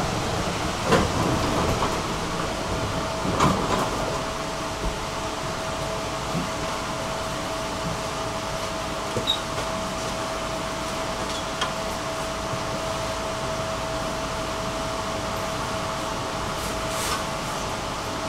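Inside a tram at a standstill: a steady hum with a constant high whine, with a few knocks in the first four seconds and light clicks later.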